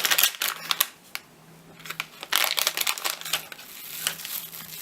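Plastic packaging crinkling and crackling as it is handled and opened, in two spells with a short lull between them.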